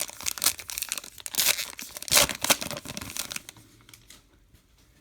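Baseball card pack wrapper being torn open and crinkled in the hands. The crackling runs for about three and a half seconds, then stops.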